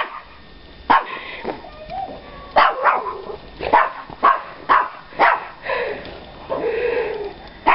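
A dog barking repeatedly, about eight short, sharp barks at irregular spacing, with a longer drawn-out sound near the end.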